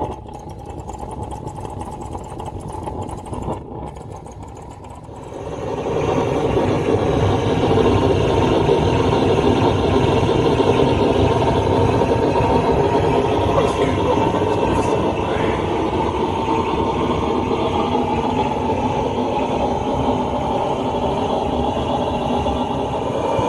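A blowlamp burns with a steady rushing roar, playing its flame into the hot-bulb of a Lanz Bulldog's single-cylinder engine to preheat it before starting. The roar grows louder about five seconds in, then holds steady.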